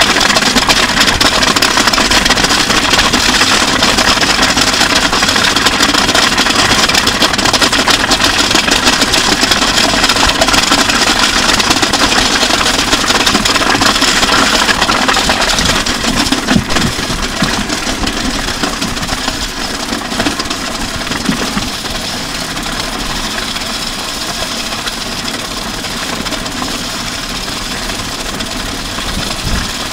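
A drum kit and electric and bass guitars dragged along wet asphalt, the guitars' signal recorded through the line and the drums through an overhead mic: a steady, dense grinding scrape, a little quieter from about halfway through.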